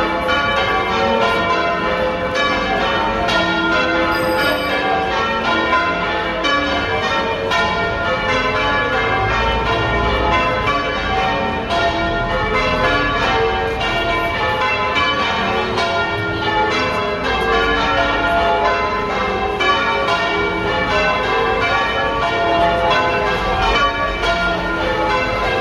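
Church bells being rung in changes: a ring of bells struck one after another in a steady, continuous running pattern.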